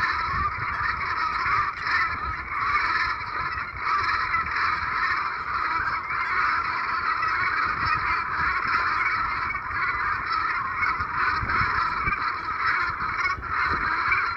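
A flock of geese honking without a break, many calls overlapping into a continuous chorus.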